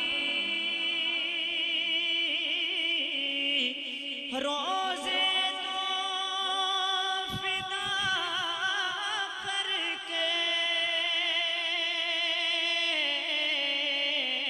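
A man singing a Punjabi naat into a microphone, drawing out long ornamented notes with a wavering vibrato. The pitch steps up about four seconds in and falls back near the end.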